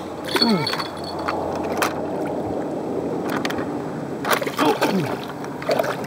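Water sloshing and splashing around a remote-control fishing boat with a hooked carp, with several sharp knocks of the boat being handled. Three short sounds slide down in pitch, about half a second in, near the end, and just after.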